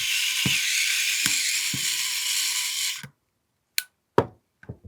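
Steady hiss with small mechanical clicks every half second or so as small pistol parts are worked by hand. The hiss cuts off abruptly about three seconds in, and a few sharp separate clicks follow.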